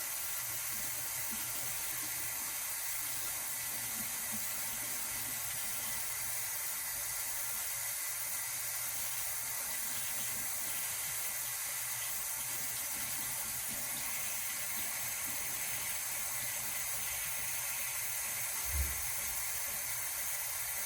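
Bathroom tap running in a steady stream. A single brief low thump comes near the end.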